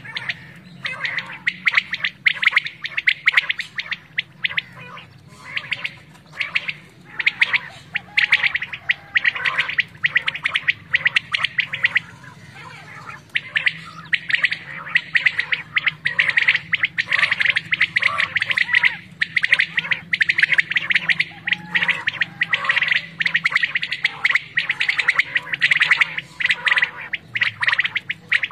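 Caged quail calling, many at once: a dense chorus of rapid, repeated high chirps that overlaps almost without pause, with a short lull about halfway through. A faint low steady drone lies underneath.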